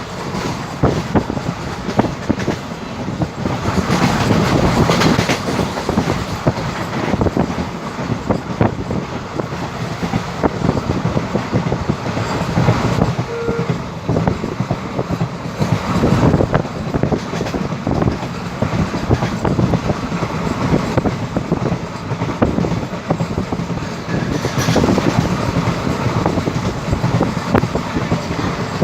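Passenger coaches of an express train passing at speed, with a steady rush and rapid clickety-clack of wheels over the rail joints that swells now and then as groups of wheels go by.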